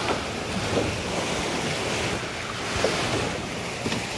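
Wind buffeting the microphone over choppy open water, with small waves lapping and a few faint splashes.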